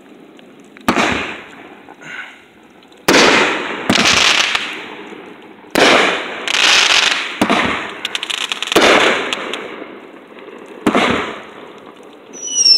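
Aerial fireworks bursting: about eight sharp bangs at irregular intervals, each followed by a fading tail of sound. Just before the end a high whistle begins, falling in pitch.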